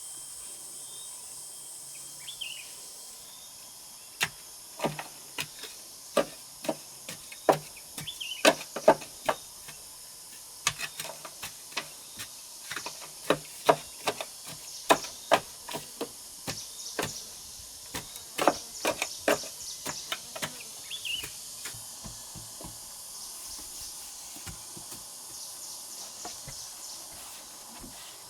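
A run of sharp, irregular knocks, roughly one or two a second, that starts a few seconds in and stops a few seconds before the end, over a steady high chirping of insects.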